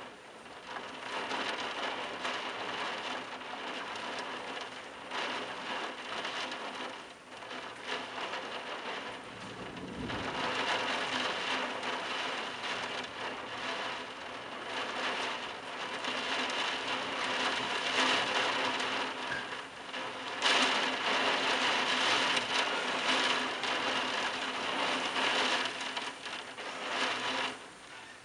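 Heavy rain pouring down in a thunderstorm, a dense steady hiss that surges louder about two-thirds of the way through.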